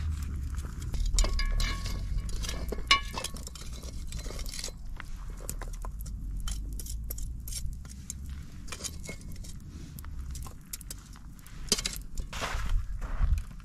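Metal tongs clinking against a charcoal grill as burning coals are stirred, a run of sharp clinks, some ringing briefly, over a steady low hum that stops about ten and a half seconds in.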